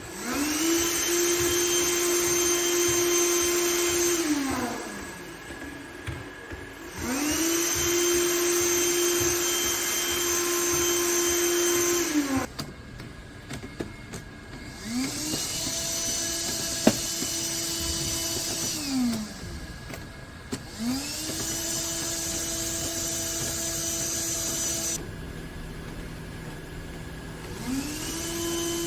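Onboard vacuum cleaner of a quadruped litter-picking robot switching on and off over and over: each time the motor whines up in pitch, runs steadily for about four seconds, then winds down. The short runs are the vacuum being triggered to suck up cigarette butts through the nozzles on the robot's feet.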